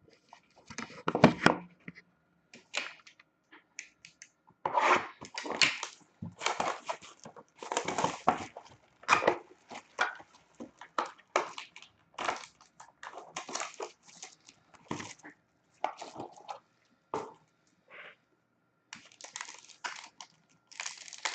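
Sealed card packaging being torn open and handled: irregular crinkling, tearing and crushing noises that come and go in short bursts.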